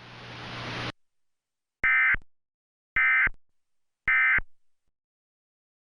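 Emergency Alert System end-of-message (EOM) signal: three identical short bursts of SAME digital data, each a harsh two-tone screech about a third of a second long, about a second apart. They mark the end of the alert. Before them, a hiss cuts off just under a second in.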